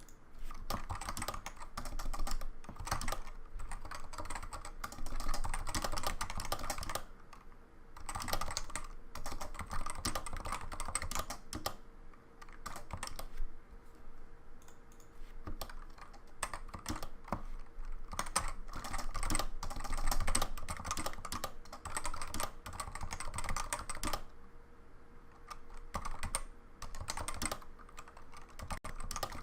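Typing demonstration on a Topre-style hybrid capacitive switch keyboard fitted with ABS doubleshot keycaps: fast runs of keystrokes with a quite deep, muted thock. The runs break off briefly a few times.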